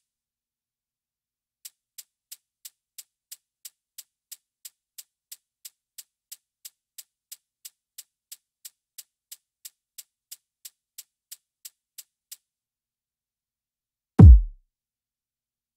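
A shaker sample played on its own as a steady pattern of short high ticks, about three a second, for some ten seconds. Near the end comes a single loud, deep electronic kick hit whose pitch falls.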